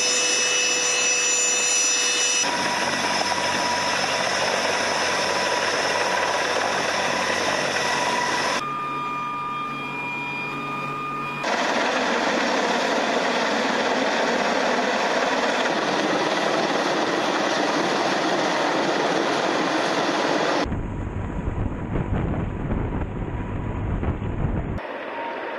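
Mil Mi-26 heavy-lift helicopter running, its rotor and turbine noise loud and steady. The sound changes abruptly several times where separate recordings are spliced together, and a deep rumble takes over for about four seconds near the end.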